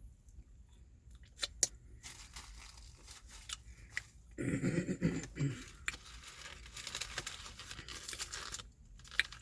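Food packaging being handled: crinkling and tearing, with a few sharp clicks near the start and a louder, muffled rustle about halfway through.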